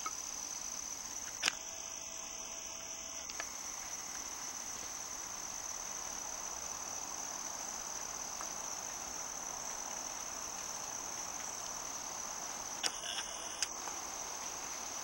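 Crickets trilling steadily in a high, unbroken chorus, with a few sharp clicks about a second and a half in and again near the end.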